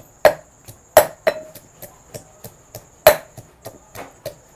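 Metal pestle pounding garlic in a steel mortar: sharp metallic knocks with a short ring, about three strokes a second, a few of them much harder than the rest.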